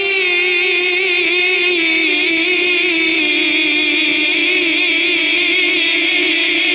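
Male Quran reciter (qari) chanting a tilawat, holding one long unbroken note that wavers and dips slightly in pitch: a drawn-out elongated syllable in melodic recitation.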